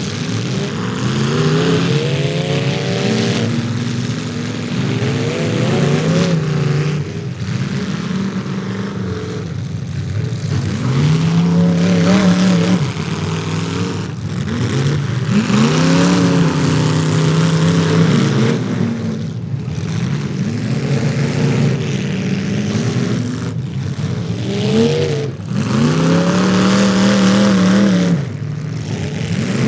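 Demolition derby car engines revving hard, pitch climbing and dropping again and again, with several engines overlapping.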